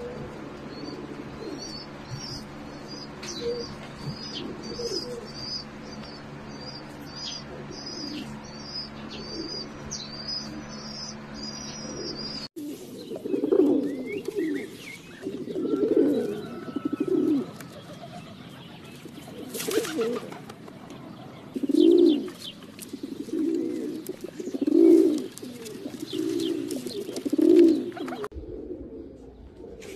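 Small birds chirping in quick repeated high notes over a steady low hum. About a third of the way in, the sound cuts to pigeons cooing: loud, deep coos every second or two.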